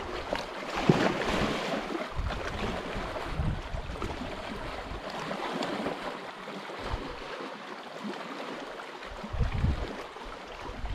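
Wind gusting over the microphone above the steady wash of lapping lake water, with low rumbles about a second in and again near the end.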